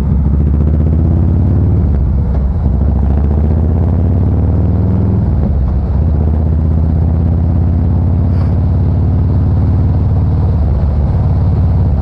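Harley-Davidson Fat Boy Special's V-twin engine running through a SuperTrapp variable exhaust while riding. The engine note climbs slowly, shifts pitch about five seconds in, then holds steady.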